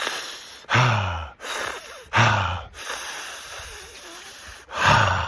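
A man doing straw breathing: short, loud, partly voiced breaths about a second and a half apart, each trailing into a longer airy breath through pursed lips that fades away; three such cycles.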